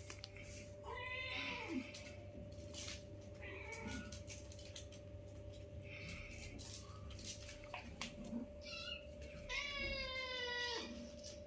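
Domestic cats meowing: a short meow about a second in, a few fainter mews in the middle, and a longer, louder meow near the end.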